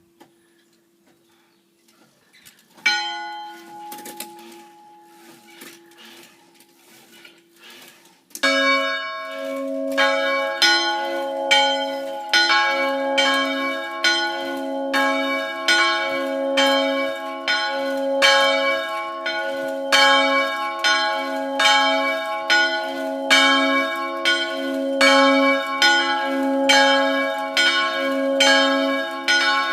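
Church bells: after a faint lingering hum, a single bell strike about three seconds in rings out and fades, then from about eight seconds the bells ring continuously in quick, regular strokes, at least two bells of different pitch overlapping as they ring.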